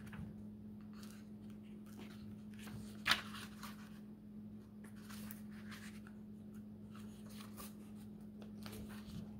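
Paper pages of a hardcover book being flipped and turned by hand: soft rustles, with one louder page flick about three seconds in. A steady low hum runs underneath.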